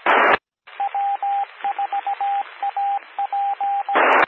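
Amateur radio repeater's Morse code identifier: a single beep tone keying W4AP in dots and dashes over a hissy radio channel. Short bursts of static come at the start and near the end as transmissions drop and key up.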